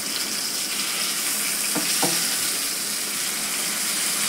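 Seer fish (kingfish) steaks shallow-frying in hot oil in a nonstick pan, giving a steady sizzle. Two light knocks come about two seconds in.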